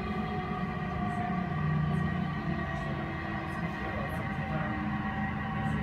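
Odakyu 3000 series electric train running, heard from inside the passenger car: a steady low rumble of wheels on rail with several thin whining tones from the traction motors and inverter, some drifting slightly in pitch.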